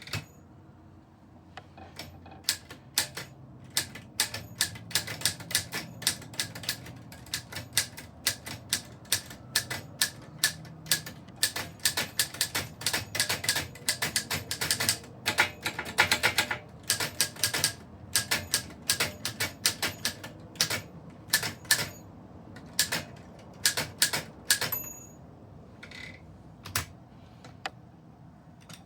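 Typewriter keys struck in quick, irregular runs of sharp clacks, thickest through the middle and thinning out to scattered strokes near the end.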